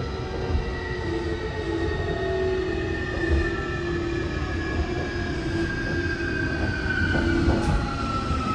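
Running sound inside a Sotetsu 20000 series electric train car with a Hitachi hybrid SiC VVVF inverter: a steady rumble of wheels on rails under a thin motor and gear whine that slowly falls in pitch as the train slows.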